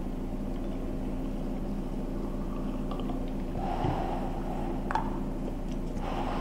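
Spray gun being cleaned by hand: solvent poured into the gun's paint cup, the plastic bottle set down with a soft thump about four seconds in, a sharp click from the gun a second later, and a soft swish as the cup is swirled near the end, over a steady low hum.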